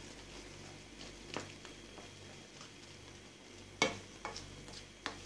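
Shrimp boiling and bubbling in 7Up and oil in a nonstick pan, with a spatula stirring and knocking against the pan a few times, the loudest knock nearly four seconds in.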